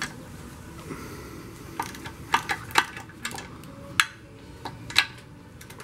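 Hand ratchet and socket loosening the 16 mm lower-unit nuts on an outboard: about a dozen sharp metallic clicks and clinks, spaced unevenly, the loudest about four and five seconds in.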